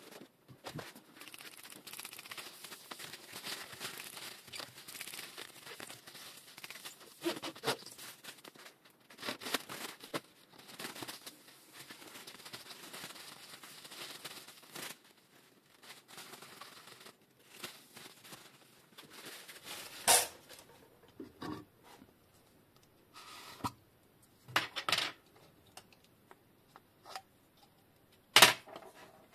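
Hands at work on a bicycle fork. For the first half, a cloth rubs and rustles against the parts. After that come scattered sharp clicks and knocks of small metal parts and tools set on a steel tray, loudest about two-thirds of the way in and again near the end.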